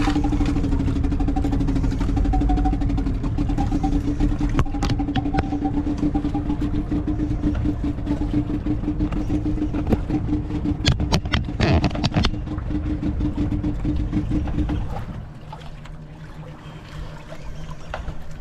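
Fishing boat engine running steadily with a pulsing hum, then easing off to a lower, quieter idle about fifteen seconds in. A few clicks and knocks near the middle.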